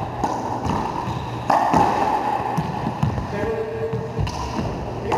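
Racquetball rally in an enclosed court: a series of sharp cracks as the rubber ball is struck by racquets and hits the walls, each ringing on in the court's echo. A shoe squeaks briefly on the hard floor about three and a half seconds in.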